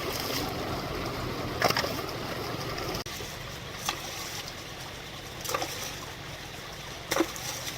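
Water splashing and sloshing over a steady wash of flowing water, with several short, sharp splashes.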